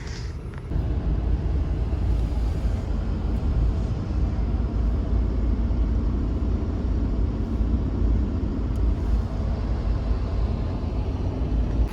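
Steady low rumble of a car on the move, heard from inside the cabin, rising a little under a second in and then holding even.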